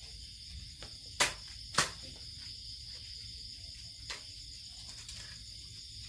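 Steady high-pitched chirring of crickets and other night insects. Two sharp clicks, about half a second apart, stand out a little over a second in, with a couple of fainter ticks around them.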